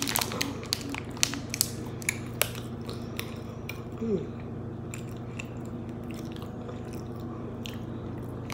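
A person chewing a mouthful of a plant-protein bar, with quick soft crunchy clicks that come thickly for the first few seconds and then thin out. A short falling hum of the voice about four seconds in.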